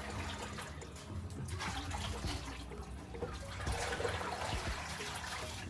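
Liquid sloshing as a ladle scoops the oil off the top of a pot of palm nut soup.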